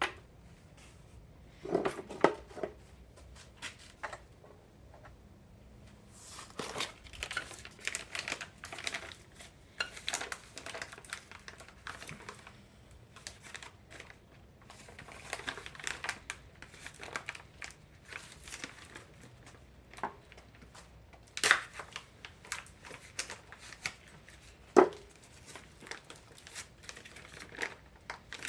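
Tools and metal fittings being handled while working on an air compressor's plumbing: scattered clicks, taps and rustling, with sharper knocks about two seconds in and twice near the end.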